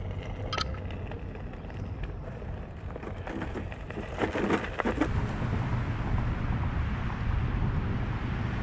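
Onewheel rolling along a park path, heard as a steady low rumble of tyre and wind on the microphone. A cluster of short clicks and crackles comes between about three and five seconds in.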